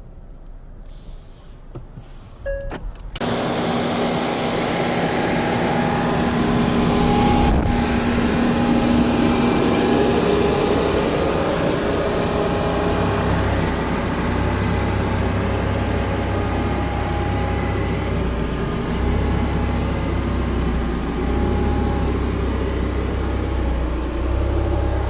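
Automatic car wash machine starting up suddenly about three seconds in and then running steadily: a loud rushing noise over the hum of its motors, with a deeper low rumble switching on and off several times in the second half.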